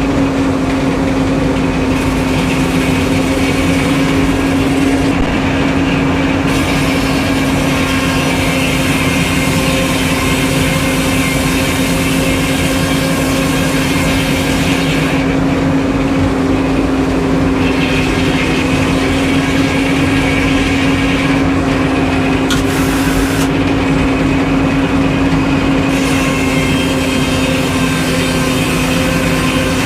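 An engine running steadily at a constant speed, with a strong even hum that holds throughout and no change in pitch.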